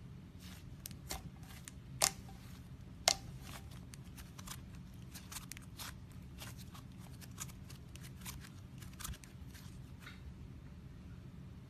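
Slime being squeezed and poked by hand, giving irregular sharp clicks and crackles, with a few louder snaps in the first three seconds and a quicker run of softer clicks after, over a steady low hum.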